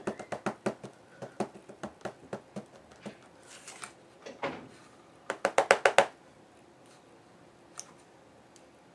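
Ombré ink pad dabbed repeatedly onto a solid rubber stamp to ink it: a run of quick light taps, then after a short pause a rapid cluster of about six sharper taps.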